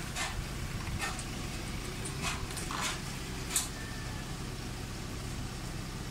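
A few light clicks and ticks as the clutch cable adjuster nut on a 1993 Mitsubishi Lancer GLi is turned by hand at the firewall, lowering the clutch pedal. A steady low hum lies underneath.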